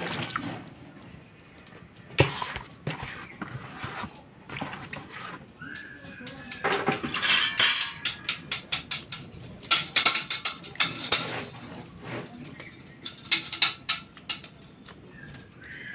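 A metal wire strainer knocking and scraping against a steel pot of hot water and grated potato, in clusters of quick sharp clicks.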